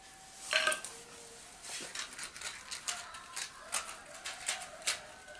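A short, loud sound about half a second in, then a run of light clicks and clatters as matchboxes and a wooden stick are picked up off concrete.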